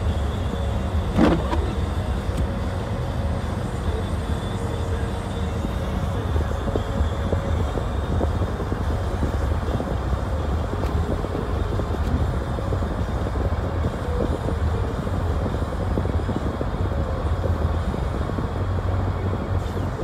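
Car driving on a snow-covered road, heard from inside the cabin: a steady low rumble of tyres and engine, with one brief sharp noise about a second in.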